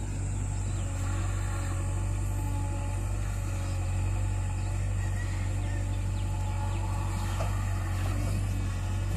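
Diesel engines of a JCB 3DX backhoe loader and a tractor running steadily with a low drone while the backhoe digs mud and swings a loaded bucket.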